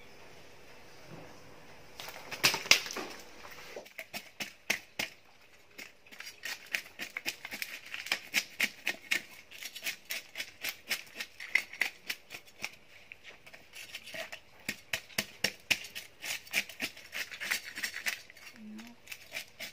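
A knife scraping the scales off a whole tilapia: quick rasping strokes, several a second, that start about four seconds in and run on steadily.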